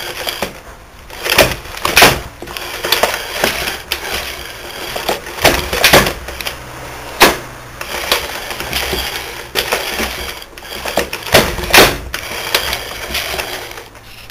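Turret lathe's turret head and slide being worked back and forth by hand: irregular metal clunks, clicks and scraping, with heavy knocks about two, six, seven and twelve seconds in. The action is rough, with brass swarf still jammed in the mechanism.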